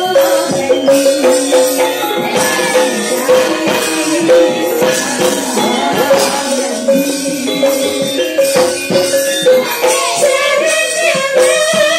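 Javanese gamelan playing with female sinden singers singing into microphones: struck bronze metallophones and gong-chimes in a busy rhythm under a held ringing note, the women's voices rising over it near the end.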